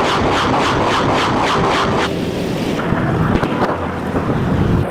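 BM-21 Grad multiple rocket launcher firing a salvo: a loud rushing roar that pulses about four times a second, giving way about two seconds in to a duller rumble.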